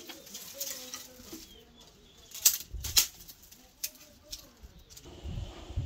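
Dry twigs and brushwood rustling and snapping as a bundle is handled and pushed into a tandoor, with two sharp snaps about halfway through and a few lighter cracks after. A low rumble comes in near the end.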